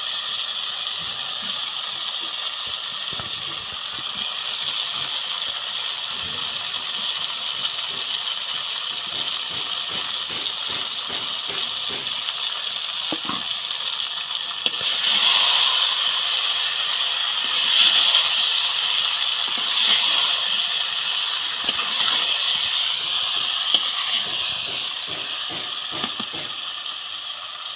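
A metal spoon clicking and scraping against a clay pot as fried potatoes are stirred into chicken curry, over a steady sizzle. From about halfway the stirring gets louder in several swells.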